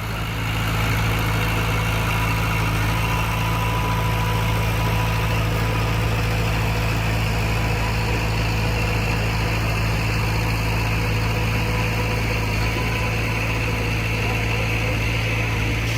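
Heavy diesel engine of earthmoving machinery running steadily at a low, even idle, a constant deep hum.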